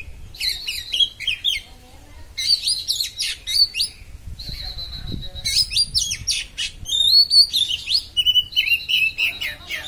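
Oriental magpie-robin (kacer) singing the sharp, rapid 'konslet' song: bursts of fast chattering and gliding whistled notes, broken by short pauses, with one held high whistle about halfway.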